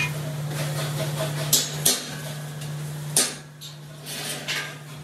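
Metal knocks and clanks from hand tools on the steel frame of an industrial platform scale: a few sharp strikes at irregular intervals over a steady low hum.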